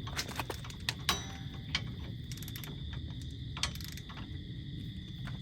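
Scattered metallic clicks and clinks from hand tools working on wheel hub bolts, a few sharp ticks with irregular gaps, over a steady low hum.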